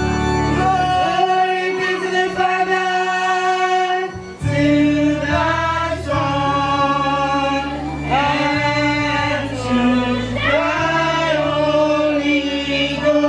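Church choir singing slowly in long held notes, with a brief break about four seconds in.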